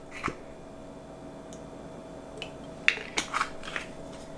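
A few faint clicks and taps of a small glass bottle and a measuring spoon as sesame oil is measured out into a dressing, over a low steady hum.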